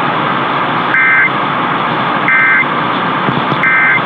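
Emergency Alert System end-of-message data signal: three short, identical buzzing bursts of two-tone digital code, each about a third of a second long and spaced a little over a second apart. They mark the close of the alert. Steady AM radio hiss runs underneath.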